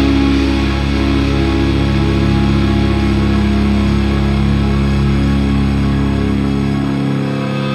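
Post-hardcore rock song with electric guitars holding long, steady chords near its close; the low bass end cuts out about seven seconds in.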